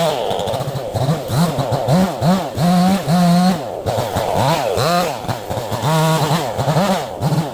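Neotec 68cc two-stroke chainsaw running with its engine speed rising and falling over and over, about twice a second, now and then held briefly at full speed.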